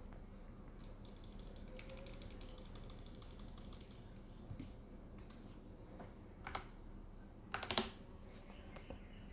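Mechanical keyboard with Huano Rose Cream V2 linear switches and ABS keycaps being typed on, faintly. A fast run of keystrokes about a second in lasts around three seconds, followed by scattered single presses, the loudest a short burst near the end.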